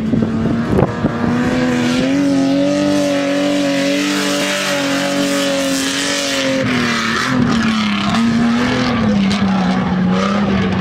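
SUV engine held at high revs as it climbs a steep sand dune, a steady note that rises a little about two seconds in and sags in the second half, over a continuous rushing noise.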